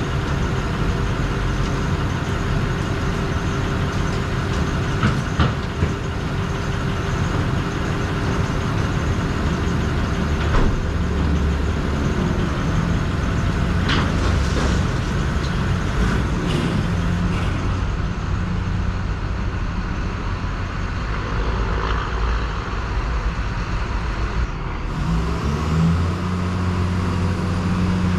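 Heavy truck engine running steadily, with a few brief clicks and a change in engine note near the end.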